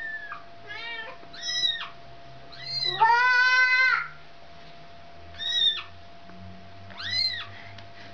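Cat meowing again and again: a series of short rising-and-falling meows, with one long, loud, steady meow about three seconds in.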